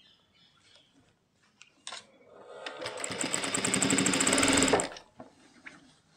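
Sewing machine stitching through fabric: after a small click, it runs up into a fast, even stitching rhythm that grows louder for about two seconds and then stops abruptly.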